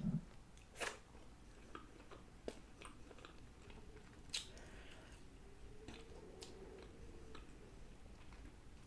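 A person quietly chewing and biting food, with a few short, sharp clicks and smacks spread through the stretch.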